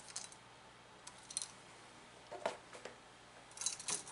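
Faint clicks and scrapes of hands handling a duplex receptacle and its copper wires while landing a wire on a screw terminal, with one duller knock about two and a half seconds in and a quick run of clicks near the end.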